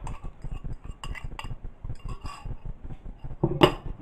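A spoon clinking and scraping against a bowl while ground pepper is added to palm oil: a quick, uneven run of light taps, with one louder knock near the end.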